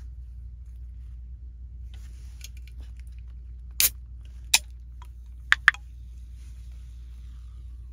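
A drink can being opened by its pull-tab: a few sharp metallic clicks as fingers work the tab, ending in a close double crack, the loudest, as the seal breaks a little over five seconds in.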